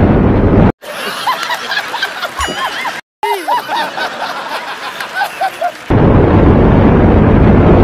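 Wind rush and engine noise from a motorcycle ridden at speed, cut away for about five seconds to a clip of a man laughing heartily in short repeated bursts, before the riding noise returns.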